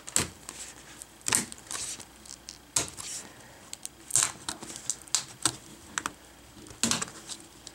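Plastic screen bezel of a Dell Inspiron 14 5000 series laptop being pried off the display by hand: a scattered series of sharp clicks and snaps, about eight in all, as the bezel comes away from its adhesive.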